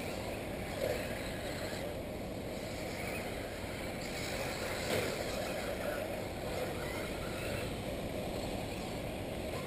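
1/8-scale electric RC off-road buggies racing on the track, heard as a steady rushing noise with no clear motor pitch. There are brief louder swells about a second in and about five seconds in.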